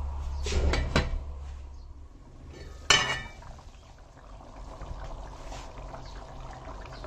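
Steel lid being set onto a stainless steel pot with a few metal clinks about a second in, then one sharp metal clank near three seconds in, followed by the soft steady sound of a curry simmering.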